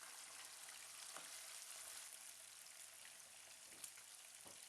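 Boiled chicken gizzards frying in hot vegetable oil: a faint, steady sizzle with fine crackling. There is a single sharp click late on.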